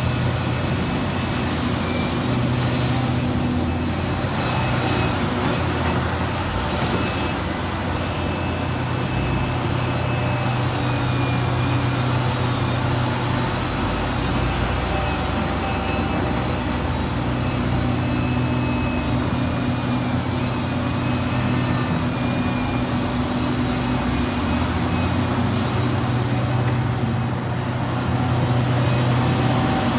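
Liebherr R 976 crawler excavator's diesel engine running steadily under load as it digs and swings, with a couple of brief hisses.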